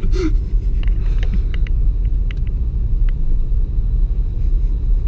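Low, steady rumble of a Vauxhall Astra heard from inside the cabin, with a few faint scattered clicks over it.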